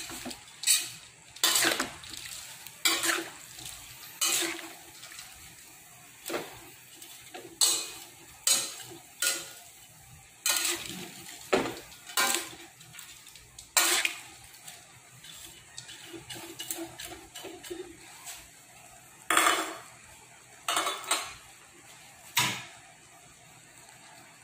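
Metal spatula scraping and clanking against a metal wok as mung bean sprouts are tossed in a stir-fry, in irregular strokes about once a second. The strokes stop near the end.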